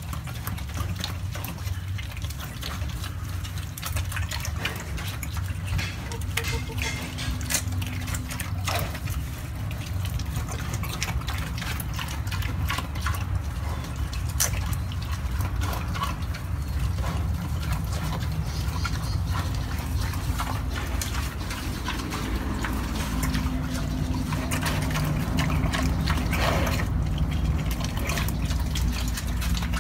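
Pig eating fresh green vegetable stalks: wet chewing, smacking and crunching, a continuous run of small crackles and clicks.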